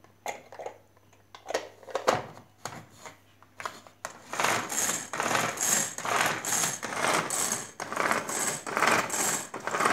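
A plastic pull-cord manual food chopper being worked: a few clicks and knocks as the lid goes onto the bowl, then from about four seconds in the cord pulled again and again, about one and a half pulls a second, each a whirring rattle as the blades spin. The cord is being drawn back in by its just-repaired recoil spring, so the mechanism is working again.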